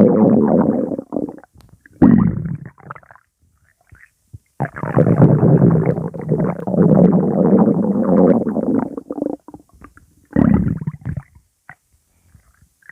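Stomach growling in four loud, low rumbling bursts with quiet gaps between them; the longest lasts about five seconds in the middle.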